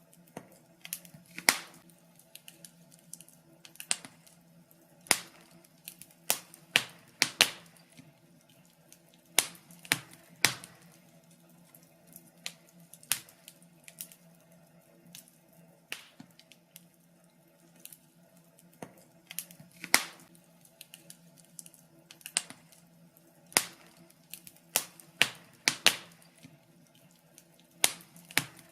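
Wood fire crackling in a fireplace: irregular sharp pops and snaps, a few much louder than the rest, over a faint steady hum.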